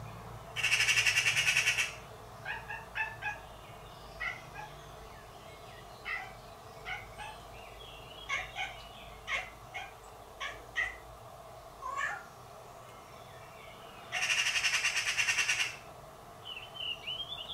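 Eurasian magpies giving their harsh rattling alarm chatter twice, at the start and again about 14 seconds in, scolding a cat near their fledgling. Between the rattles come a string of short chirping calls and a wavering meow-like call near the end, the cat answering the birds.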